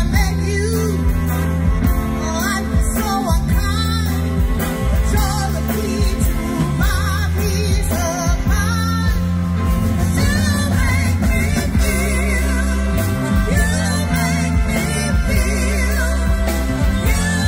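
Live band playing, with a woman singing lead into a microphone; her voice wavers with vibrato over a steady bass line and drums.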